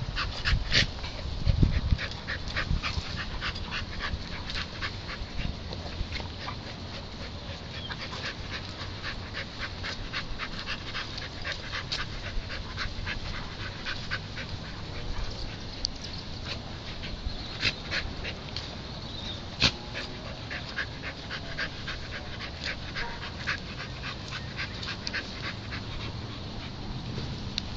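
A dog snuffling and panting in many short, irregular bursts as it noses a brick through loose dirt.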